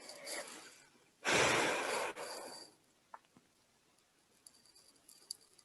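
A person's long, breathy sigh lasting about a second and a half, starting about a second in, followed by a few faint ticks.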